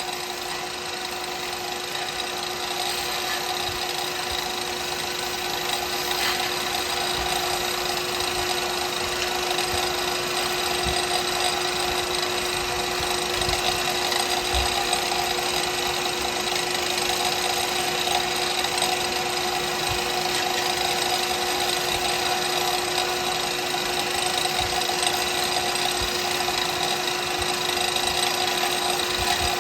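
Wood lathe running steadily with a constant hum, spinning a cast pen blank.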